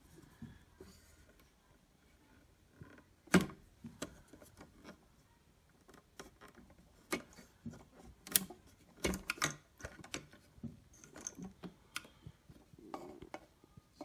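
Plastic and metal clicks and taps from a record player's tone arm and arm rest being handled by hand while the transit lock holding the arm is worked free. One sharp click about three seconds in, then a run of clicks and taps a few seconds later.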